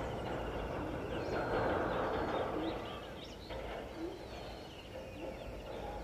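Birds calling at dawn: many short high chirps and, through the second half, a few short low calls from a larger bird. Underneath runs a steady rumbling background noise that swells about two seconds in, then eases off.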